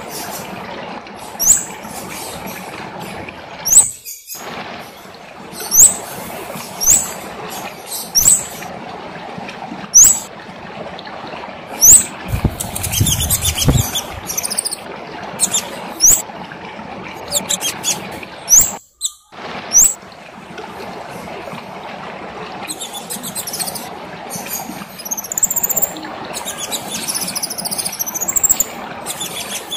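Kemade songbird singing: sharp, very high upswept whistled notes repeated every one to two seconds, giving way about two-thirds of the way through to faster, denser high twittering. A steady background hiss runs underneath, with a brief low rumble about halfway.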